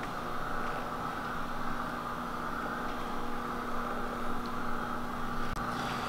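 Steady mechanical drone of running equipment: an even rushing hiss with a low steady hum under it.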